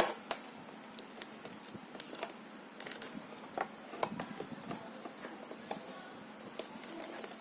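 Scattered faint clicks and taps, a few each second with the loudest right at the start, from hands handling a phone and its USB cable while plugging it in, over a low room hiss.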